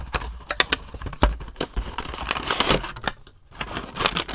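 Funko Pop cardboard box being opened by hand: a run of small clicks and scrapes, with a denser burst of plastic rustling about two seconds in as the vinyl figure, wrapped in a clear plastic bag, is drawn out.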